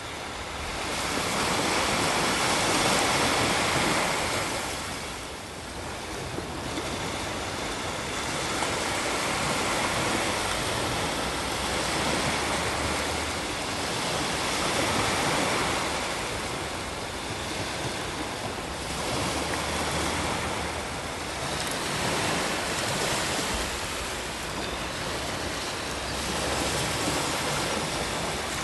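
Ocean surf breaking and washing up a sand beach, the wash swelling and falling back every few seconds.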